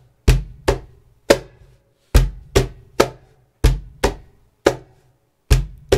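Cajon played with the hands: deep bass strokes on the wooden front in a repeated three-stroke figure, each group about a second and a half apart. The strokes mix bass tones from different spots on the playing face.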